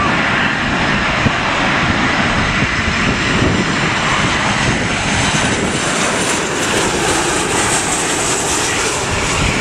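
Jet engines of a Ryanair Boeing 737-800 (CFM56 turbofans) on final approach: a loud, steady rush of engine noise, with a high whine growing stronger in the last few seconds as the airliner passes low overhead.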